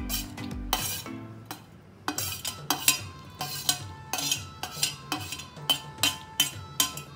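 Metal spoon scraping chopped celery off a stainless steel plate into a steel mixing bowl: quick repeated scrapes and clinks, coming faster after about two seconds.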